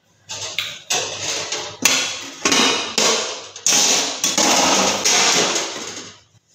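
A string of loud knocks and rubbing noises close to the microphone, each starting sharply and lasting about half a second to a second, before stopping near the end.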